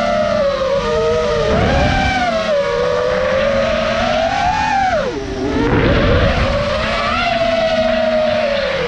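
Brushless motors and propellers of a Nazgul5 five-inch FPV quadcopter on a 6S battery whining in flight. The pitch rises and falls with the throttle, dropping sharply about five seconds in and climbing back, over a low rumble of air rushing past.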